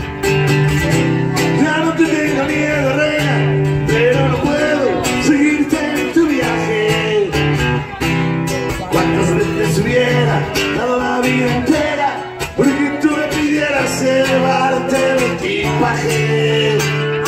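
Acoustic guitar strummed and picked, amplified through PA loudspeakers, playing an instrumental passage of a Spanish pop-rock song with a steady chord rhythm.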